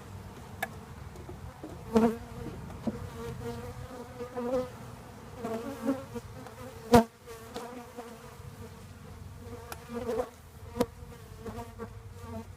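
Honeybees buzzing in a steady hum, with a few sharp knocks from handling, the loudest about seven seconds in.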